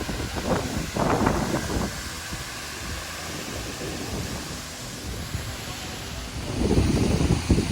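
Steady rush of a high waterfall, heard as an even roar of water, with wind buffeting the microphone in gusts about a second in and again near the end.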